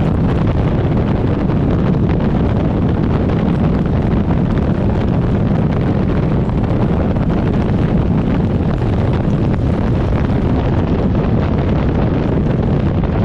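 Steady wind rushing over the microphone of a Harley-Davidson motorcycle ridden at speed, with the bike's engine running beneath it.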